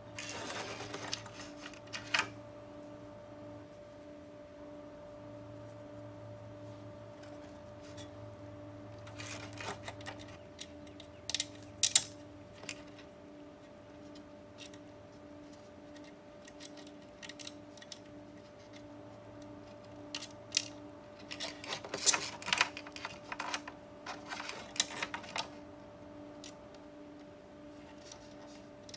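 Parts of a sheet-metal hard-drive enclosure being fitted back together by hand: scattered clicks, knocks and rattles of the metal panel, chassis and wiring, the sharpest pair about 12 s in and a busy run of clatter around 22 to 25 s. Under it a faint steady hum with a soft pulsing tone about once every 0.7 s.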